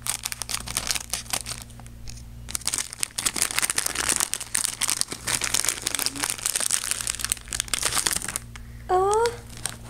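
Thin plastic blind-bag packet crinkling and rustling in the hands as it is cut open and handled, in dense irregular crackles. A brief rising vocal sound comes near the end.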